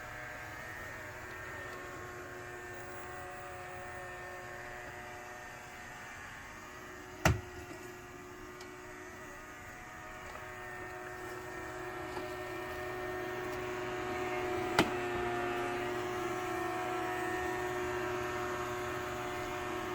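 Sterilizing robot vacuum cleaner running with a steady motor hum and whine, growing a little louder about halfway through. Two sharp knocks stand out, one about seven seconds in and one about fifteen seconds in.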